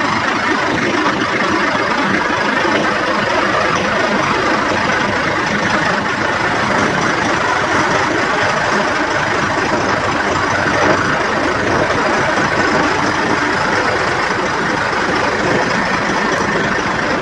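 Heavy diesel engine of a Peterbilt 389 semi tractor idling steadily.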